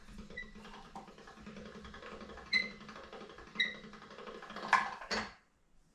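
Hand-cranked metal pasta roller being turned as a sheet of pasta dough is run through it at setting three: a low steady rumble with a few sharp ringing metallic pings, then two louder knocks near the end.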